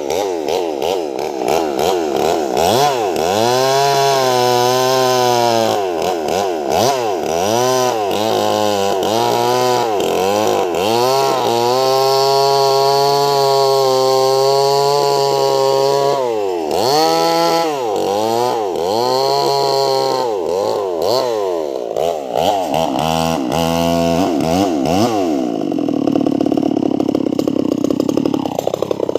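Sumura two-stroke chainsaw with a 24-inch bar ripping a log lengthwise, its engine pitch dipping and recovering again and again as the chain bogs under load in the cut. Near the end it eases off to a steadier, lower running.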